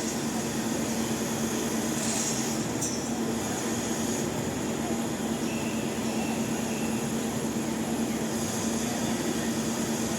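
Heavy machinery engine running steadily with a constant low hum, under a wash of construction-site noise.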